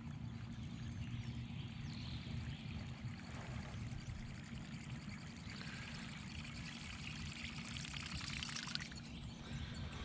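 River water trickling and lapping against a kayak, low and steady.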